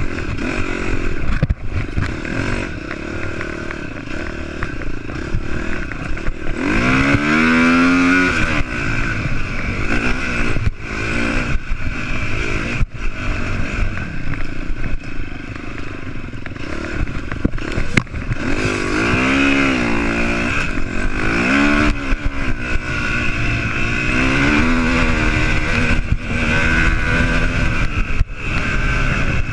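Dirt bike engine revving up and down as it is ridden hard over rough off-road ground, with occasional sharp knocks.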